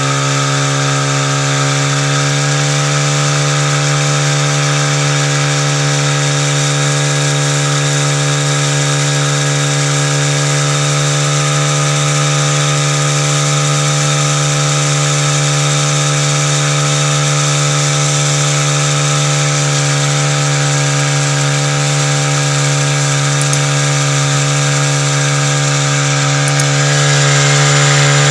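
Portable fire pump's small petrol engine running steadily at high speed. Its pitch climbs slightly at the start and then holds, and it grows a little louder near the end.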